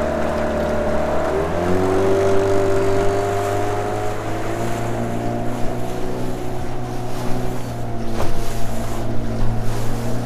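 Outboard motor on a small aluminium tinny running under way; about a second and a half in the revs rise as it is throttled up, then hold steady.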